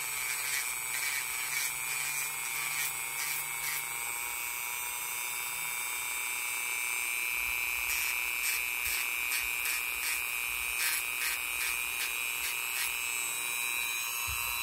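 Dremel rotary tool on a low speed setting running with a steady whine while its sanding drum grinds down the plastic clicking bumps on a puzzle piece, with short repeated scraping bursts as the piece touches the drum.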